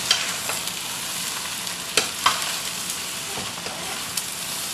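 Fried rice sizzling in a hot pan as it is stirred, with a utensil clicking sharply against the pan twice about two seconds in.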